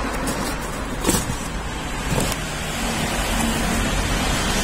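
Cardboard box flaps handled and the new steering motor shifted inside its box, with a sharp knock about a second in and another a little after two seconds, over a steady background hiss.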